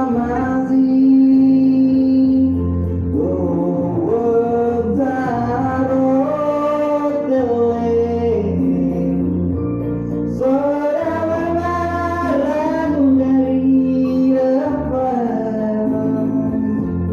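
A solo voice singing long, held notes that slide from pitch to pitch, over a steady musical accompaniment.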